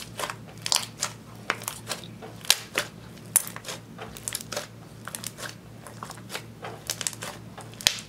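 Clear slime tinted with mixed-in eyeshadow being squeezed and kneaded by hand, giving off quick, irregular sharp wet pops and squelches as trapped air bubbles burst.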